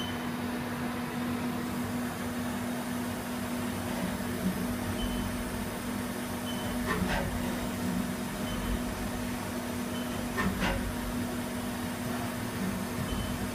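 Haas CNC vertical mill running a Renishaw probing cycle: a steady machine hum with a few brief whooshes of the axes moving the probe, and short high beeps every second or two.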